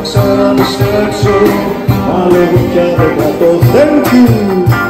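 Live street band playing: acoustic and electric guitars over a steady cajon beat, with a singing voice.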